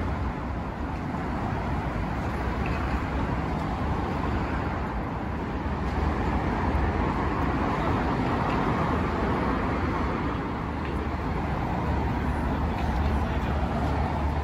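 Steady road traffic noise from cars and buses on a busy multi-lane city avenue. It swells a little about halfway through as a vehicle passes closer.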